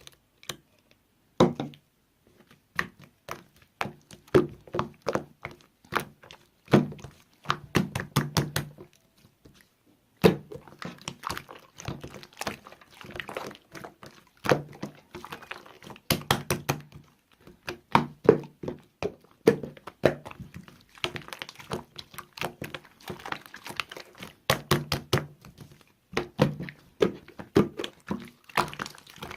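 Slime being pressed and squeezed by hand, with a dense, irregular run of sharp clicks and pops as air bubbles burst in it, several a second.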